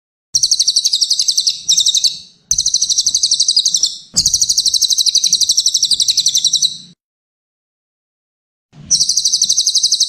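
Cililin songbird singing: rapid, high, buzzy trills in phrases of one to three seconds, with a silent pause of nearly two seconds before a last phrase near the end.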